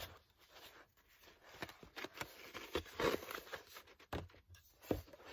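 Pages and covers of a thick handmade paper journal being turned and folded shut by hand: paper rustling and sliding, heaviest about three seconds in, with two knocks near the end as the covers come together.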